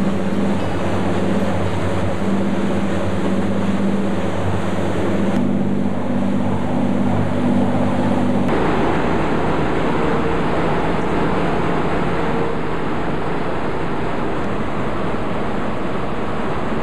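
A tugboat's Nohab Polar diesel engine drones steadily under wind and water noise. About eight seconds in, the sound cuts to the loud, even rushing of the boat's churning wake, with wind buffeting the microphone.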